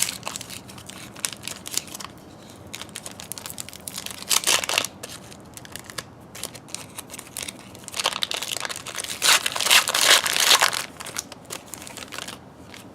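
A trading-card pack wrapper being torn open and crinkled, with louder bursts of crinkling about four seconds in and again from about eight to eleven seconds.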